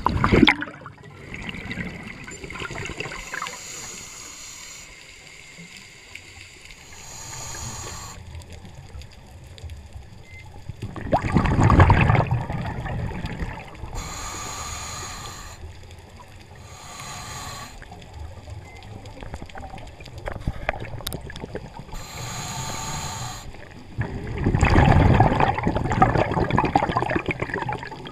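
Scuba breathing through a regulator, heard underwater. Exhaled bubbles gurgle out in loud rushes three times: briefly at the start, near the middle and near the end, with fainter hissing between them.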